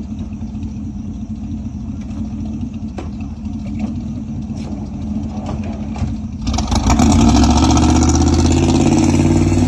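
A vehicle's engine running with a steady low rumble. About six and a half seconds in it suddenly gets much louder and fuller and stays at that level.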